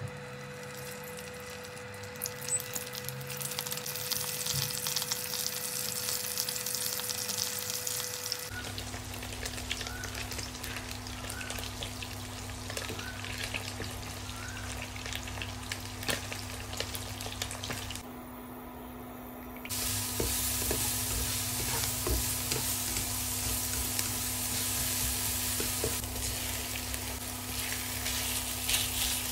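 Slices of egg tofu sizzling and crackling as they pan-fry in oil, with a spatula scraping and turning them in the pan; later, chopped vegetables and minced pork are stir-fried. The sizzle drops away briefly a little past the middle.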